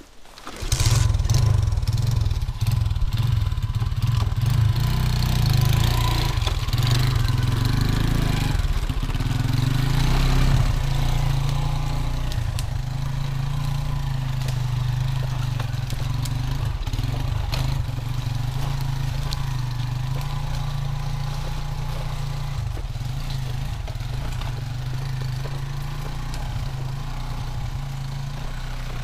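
Homemade two-wheel-drive motorcycle's engine comes in abruptly about half a second in and runs steadily under load as the bike pushes through dense forest undergrowth, getting gradually quieter over the second half.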